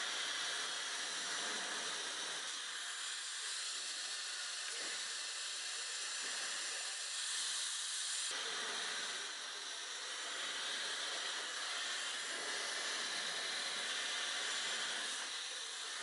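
Handheld hair dryer blowing a steady rush of air while drying long hair; the tone shifts abruptly a little past halfway.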